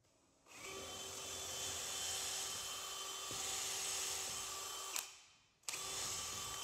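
Cordless drill boring a pilot hole into a wooden stair tread. It runs steadily for about four and a half seconds, stops, then starts again near the end.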